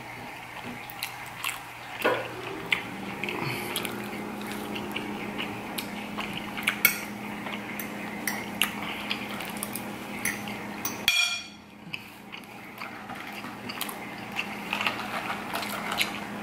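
Close-up eating sounds: a metal fork clinking and scraping on a plate of macaroni and cheese, with chewing and mouth noises as small irregular clicks.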